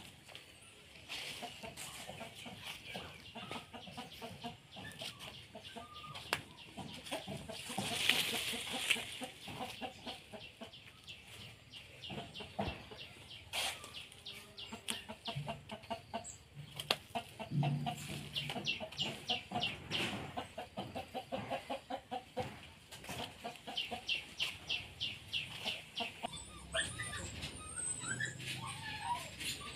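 Chickens clucking, with runs of quick repeated high calls, over footsteps on dry leaves and soil.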